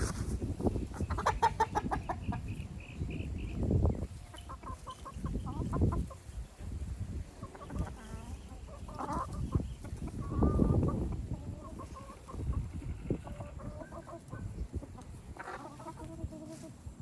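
Chickens clucking and squawking in short bursts on and off, with a longer call near the end, over a low uneven rumble.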